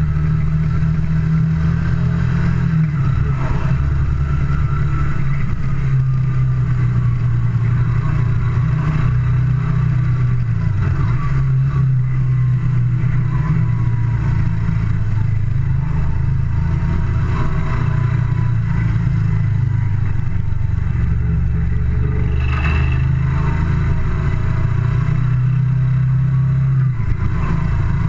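Moto Guzzi Le Mans II's air-cooled 90-degree V-twin running under way on the open road, its note stepping up and down several times as the throttle changes.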